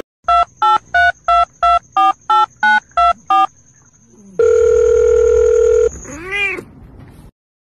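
Telephone touch-tone keypad beeps, about ten quick tones about three a second as a number is dialled, then a steady tone lasting about a second and a half. Near the end comes a short meow, rising and falling in pitch.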